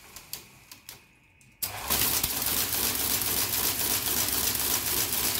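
1956 Olivetti Tetractys electromechanical printing calculator, running with its body off: a few key clicks, then about one and a half seconds in the motor-driven mechanism starts and runs with a fast, steady clatter as it works through an automatic division.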